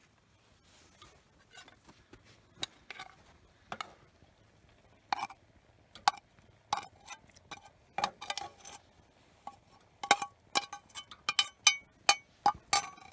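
Metal spoon clinking and scraping against a small camp pan as food is scraped out of it into a cookpot: scattered clinks at first, coming quicker and louder over the last few seconds.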